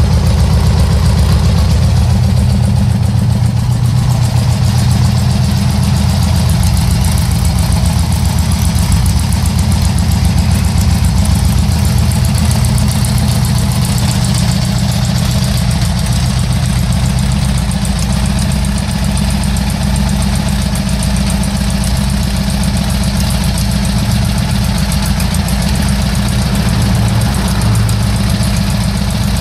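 Air-cooled Volkswagen-style flat-four engine on a test stand, idling steadily.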